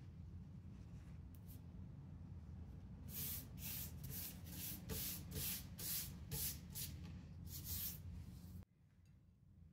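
Palms smoothing a sheet of filo pastry flat: a run of about ten short, dry rustling strokes, starting about three seconds in, over a low steady hum that cuts off near the end.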